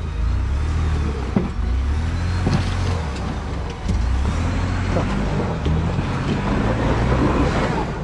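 Sixth-generation Ford Bronco's engine running under load at crawling speed as it works over a rocky ledge, the note rising and falling with the throttle. A few sharp knocks from the tyres and chassis on rock, and it is loudest near the end as the truck comes alongside.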